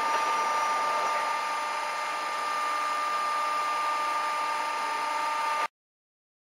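Machinery of a Peddinghaus CNC steel-feed setup running: a steady hum and hiss with a constant two-tone whine, which cuts off suddenly near the end.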